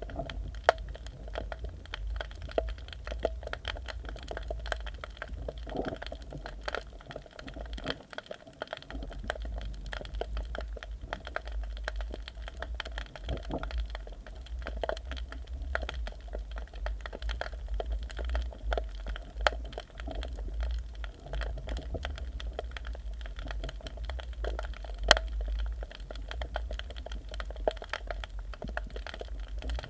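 Underwater audio from a submerged camera: a steady low rumble of water against the camera housing, with irregular crackling clicks scattered throughout and a few louder ticks.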